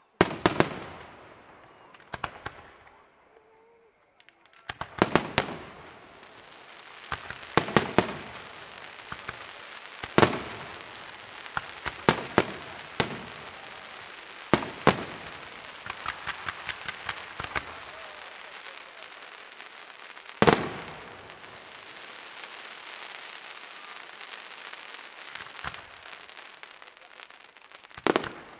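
Aerial firework shells bursting with sharp bangs, often a second or two apart and sometimes in quick clusters, over a continuous crackle and hiss of burning stars; the loudest bang comes about twenty seconds in.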